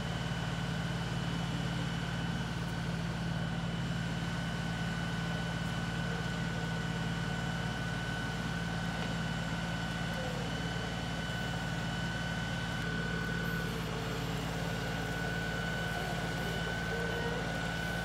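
LS XR3135 compact tractor's diesel engine running steadily while the backhoe is worked, with a steady high whine above the engine note.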